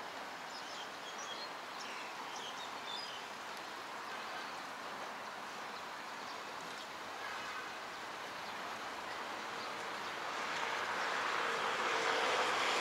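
City street ambience of road traffic along a wide avenue, with small birds chirping in the trees during the first few seconds. The traffic noise grows louder about ten seconds in as vehicles pass.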